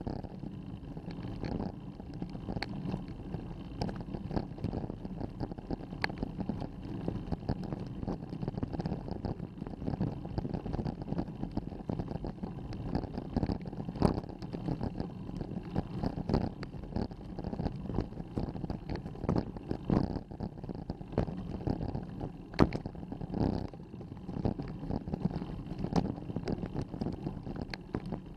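A bicycle climbing slowly up a rough dirt and gravel track: a steady rumble and rattle from the tyres and frame, dotted throughout with sharp clicks and knocks.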